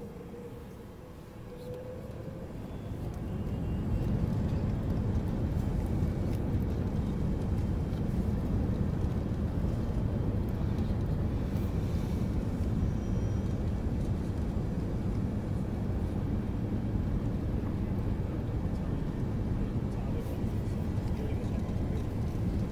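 Airbus A380's four Engine Alliance GP7200 engines spooling up to takeoff thrust, heard from inside the passenger cabin. The rumble swells over the first three or four seconds, then holds as a steady loud low rumble through the takeoff roll.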